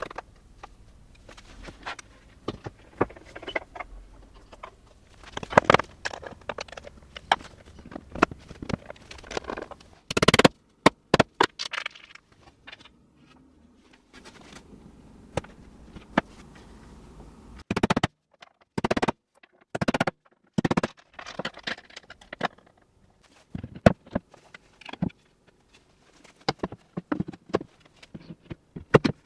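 A string of sharp knocks, clicks and scrapes from objects being handled, broken by short silences and sudden cuts.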